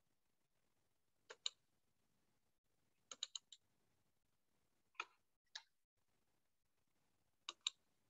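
Computer mouse clicking in short groups: a pair, then a quick run of four, two single clicks about half a second apart, and another pair near the end.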